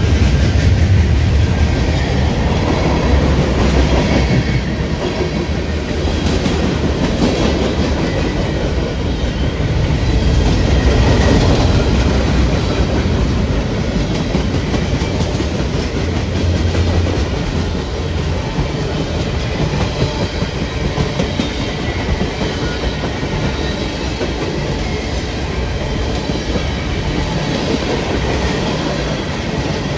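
A train's cars rolling past on the rails, a steady loud rumble that goes on without a break.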